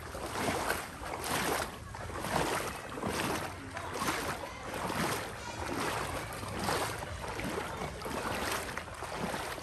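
Floodwater swishing and splashing in regular surges, about one a second.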